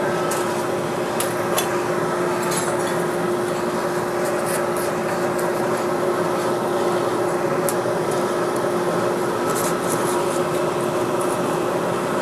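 The air blower of a coke forge running steadily, a constant hum over a rush of air, keeping the fire hot while a billet preheats. Light clicks sound now and then over it.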